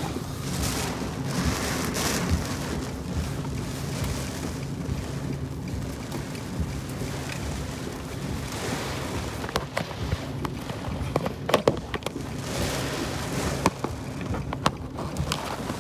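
Storm wind and rain noise over a vehicle's low steady hum, with scattered sharp taps in the second half.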